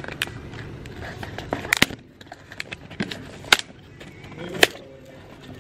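Snap-off utility knife slicing packing tape and cardboard on a box: a series of short, sharp scrapes and clicks, about six of them, over a low, steady background rumble.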